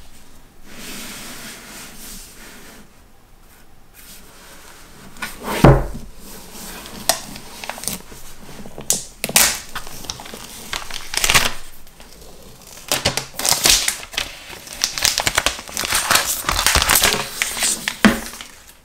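Clear plastic wrapping crinkling and tearing in bursts as it is peeled off an iPhone 12 Pro Max box, busiest in the second half. A single dull thump of the box being handled about five and a half seconds in is the loudest sound.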